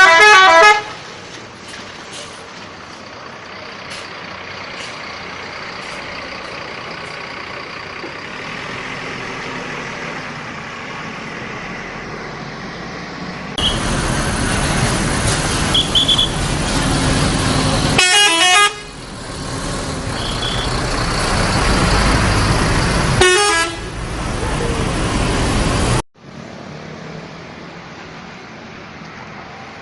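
Short loud blasts of a bus's multi-tone telolet air horn, the tones changing quickly: once at the very start, then twice more about five seconds apart later on. Between the blasts there is steady traffic noise, and then the louder engine and road noise of a large bus passing close by.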